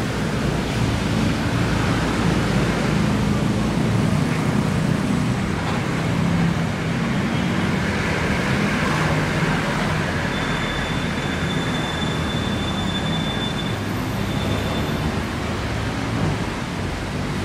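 City street traffic on a wet road: the engines of passing cars and motorcycles and a steady hiss of tyres. A thin high tone sounds for about three seconds midway.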